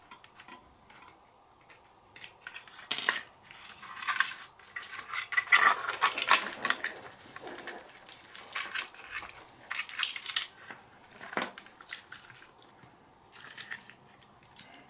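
Small plastic and metal parts of an RC car being unscrewed and pulled off by hand, including a sleeve on a threaded rod and a homemade plastic cover: irregular clicks, scrapes and rattling. The sounds are sparse at first, get busy for several seconds in the middle, then thin out to a few clicks.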